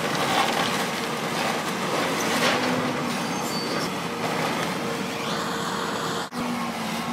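Diesel engine of a John Deere tracked excavator running under load as its arm tears into a timber building, with the cracking and crunching of wood and debris. There is a brighter crash about two and a half seconds in.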